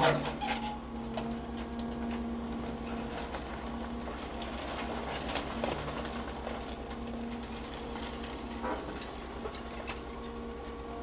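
Excavator's diesel engine running steadily while it loads demolition debris, with a sharp crash of debris right at the start and a few lighter knocks and clatters later.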